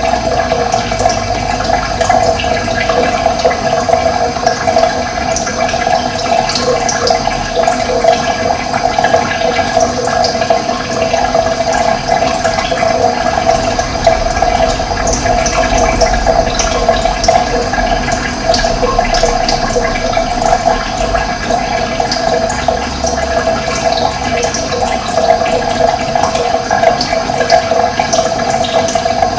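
Running water: a steady, continuous rushing flow.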